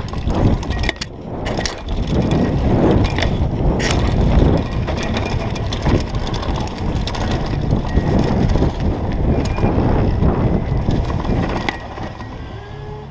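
Mountain bike rattling and rumbling over a bumpy grass-and-dirt downhill track, with sharp knocks as it hits bumps. The noise eases near the end as the ground flattens.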